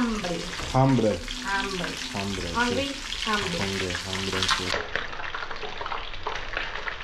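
Fish frying, a steady sizzle full of fine crackles. A person's voice sounds over it for the first four seconds or so.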